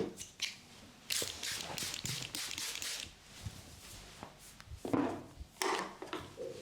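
Hands rubbing over a person's hair and scalp in a head massage, a hissing rub for about two seconds, with a few sharp pats or slaps near the start and again near the end.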